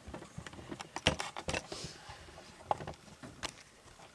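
Irregular sharp clicks and knocks, the loudest about a second in, with a few more spread through the rest.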